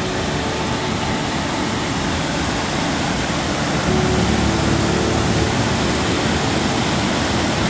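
Waterfall on a river rushing: a steady, even roar of falling water.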